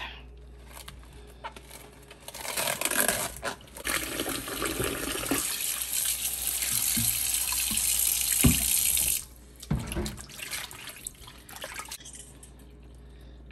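Kitchen tap running into a sink for several seconds, starting a couple of seconds in and shutting off abruptly about nine seconds in, with a few knocks of handling around it.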